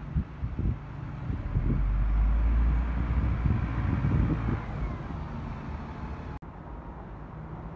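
A double-decker bus's diesel engine rumbling as it pulls past close by. It is loudest about two to four seconds in, then fades as the bus moves away.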